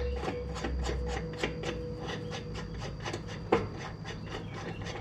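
Hand work with an adjustable wrench on the mower's belt-tensioner adjusting nut, metal rubbing and scraping as the nut is backed out. A steady ticking runs about four or five times a second, with a sharper click about three and a half seconds in.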